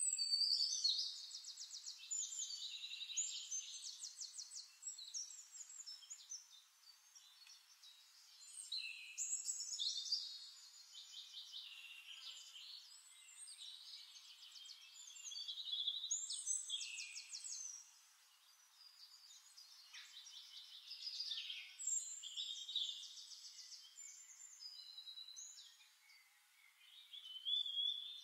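Birds singing: high-pitched chirps and fast trills, in phrases that come and go every few seconds.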